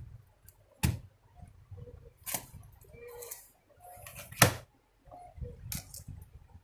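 Small screws and a screwdriver clicking and tapping against a laptop's plastic back panel as the screws are put back in: four sharper clicks spread out, with quieter handling noise between.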